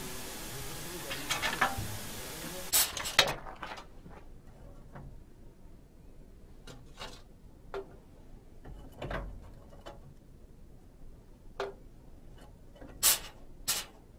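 A steady hiss that cuts off suddenly about three seconds in, then scattered sharp clicks and knocks of switches being worked on an old control-panel machine, the loudest two close together near the end.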